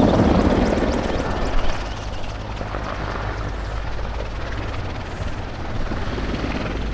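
Mil Mi-24 Hind attack helicopter flying past, its main rotor and twin turboshaft engines running. It is loudest at the start and fades over the first couple of seconds, then holds steady as the helicopter banks away.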